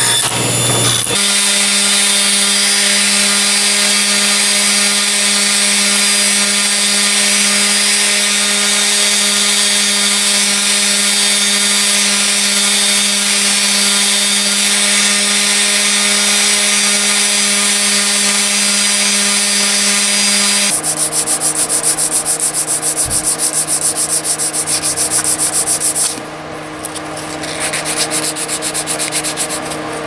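Random orbital sander running steadily with a wooden piece pressed against its pad, giving a constant motor hum under a bright sanding hiss. It follows a brief scroll-saw cut at the very start. About two-thirds of the way through, the sound shifts to a lower hum with a fast regular pulse.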